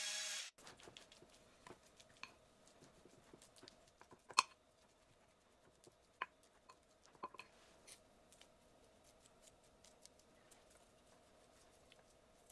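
Quiet kitchen handling sounds: scattered light clicks and taps, the sharpest about four seconds in, over a faint steady hum. A louder mechanical running sound stops half a second in.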